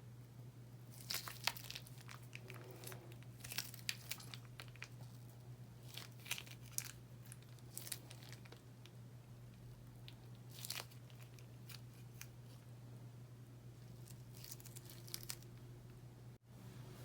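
Slime being worked by hand, giving clusters of sharp crackles and pops as it is pressed and pulled apart, with a pause before a last short burst near the end.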